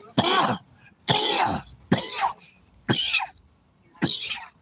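A man coughing in a fit, about five separate coughs roughly a second apart, while smoking a strong joint of cannabis.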